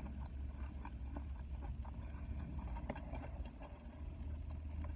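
Eating sounds: scattered small clicks and crunches of chewing and handling food, over a steady low rumble inside a car.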